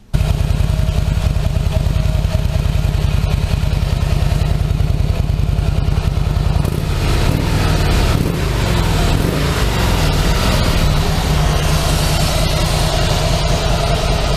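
Harley-Davidson Fat Boy's V-twin engine running on its factory exhaust, with a steady pulsing beat. The note shifts about seven seconds in.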